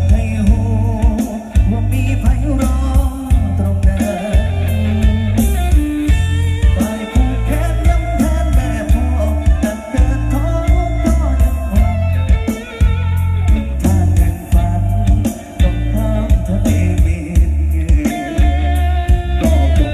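Live band music played loud through a large PA system, an instrumental passage with electric guitar over heavy bass and drums.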